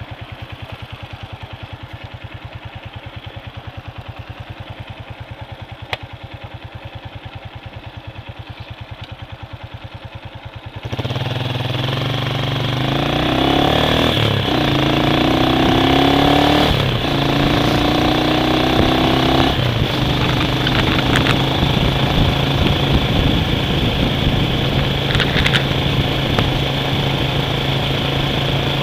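A motor vehicle's engine running at an even idle. About eleven seconds in it pulls away, its pitch climbing and dropping back three times as it shifts up through the gears, then settles into steady cruising with wind and road noise.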